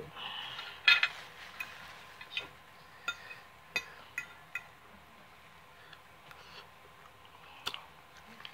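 Metal fork clinking and scraping on a dinner plate in scattered taps, the loudest about a second in, a little before four seconds and near the end.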